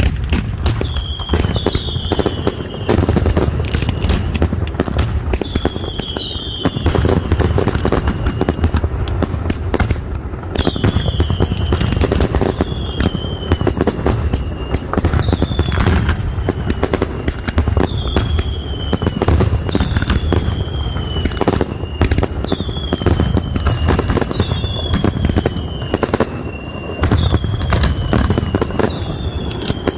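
Castillo fireworks display by Pirotecnia Nadal-Martí: a dense, continuous run of bangs and crackling shell bursts. Over it, whistling fireworks shriek every second or two, each whistle dropping slightly in pitch.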